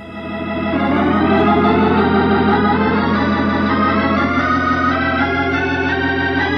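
Organ music bridge: sustained chords that swell in over the first second and hold, with a chord change about four seconds in, marking a change of scene in a radio drama.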